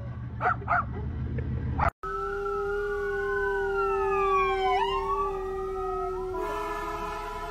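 A yellow Labrador retriever howling in a car, from about two seconds in, along with a passing emergency siren whose pitch slides down. Before that there are a few short sounds.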